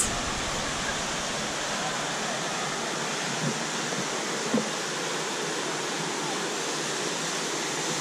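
Steady rush of a waterfall's falling water, an even hiss that does not change.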